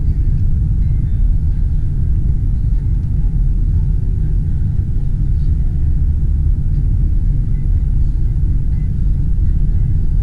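Steady low rumble of a car driving along a paved road, heard from inside the cabin: engine and tyre noise with no change in speed.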